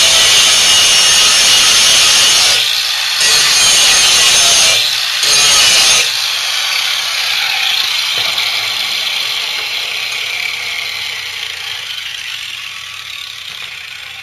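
Angle grinder with a grinding disc grinding the edge of a steel lawnmower blade: a loud, harsh grinding that breaks off briefly twice as the disc is lifted. About six seconds in the grinding stops, and the grinder runs on, falling in pitch and fading as it winds down.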